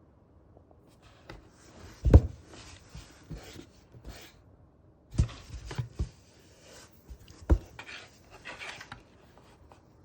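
A pet sneezing several times in a row: sharp sneezes, the loudest about two seconds in and others around five to seven and a half seconds in, with short hissy sniffing breaths between them.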